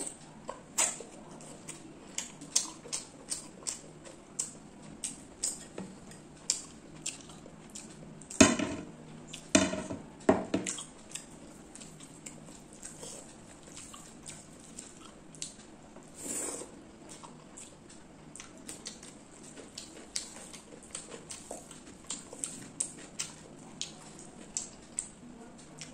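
Close-miked eating sounds of chicken curry and rice eaten by hand: a steady run of short wet smacks and clicks from chewing and fingers working the rice on the plate, with a few louder sounds about a third of the way in.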